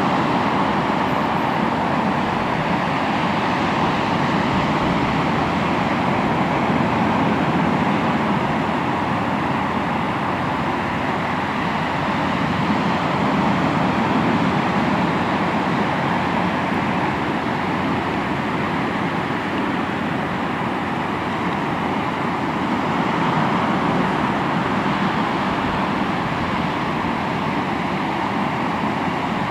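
Sea waves breaking and washing on the shore, a continuous rushing surf that swells and eases slowly.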